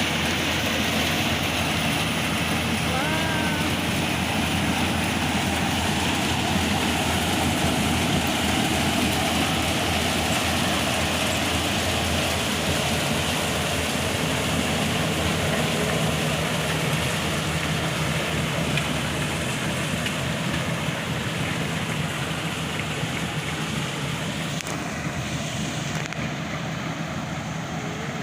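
Yanmar AW-70V corn harvester running steadily, its engine and harvesting machinery making a continuous mechanical din that eases slightly over the last few seconds.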